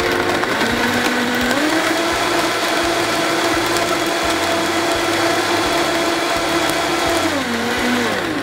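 Vitamix blender motor running at speed, blending a liquid batter of bananas, dates, eggs and milk. Its pitch shifts about a second in, and at the very end it is switched off and winds down with a falling whine.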